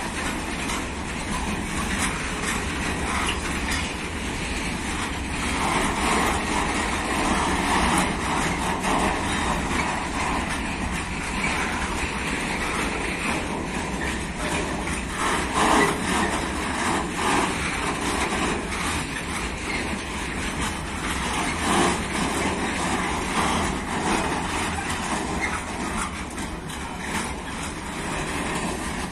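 A train running past on the line: a steady rolling noise of wheels on rail, with a few brief louder moments.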